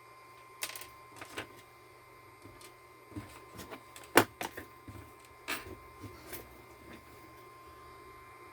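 Irregular clicks and light knocks of small objects being handled, with the loudest knock about four seconds in, over a faint steady high tone.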